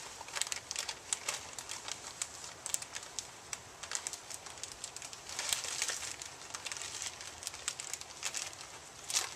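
A pan of liquid boiling down on a gas burner, bubbling and crackling irregularly, with the crinkle of a small packet being handled and opened. The crackles come thickest a little past halfway, and a loud one comes near the end.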